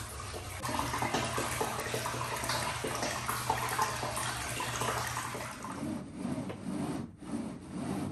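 Hot-spring water pouring steadily from a spout into a full bathtub, splashing into the water's surface.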